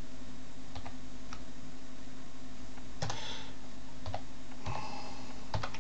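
Computer keyboard keys pressed one at a time, slow one-finger typing: a handful of separate keystrokes about a second apart, with a faint steady hum beneath.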